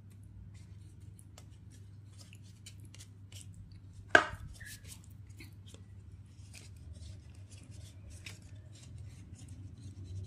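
A single sharp knock about four seconds in, with a short ring after it, over scattered faint ticks and a low steady hum.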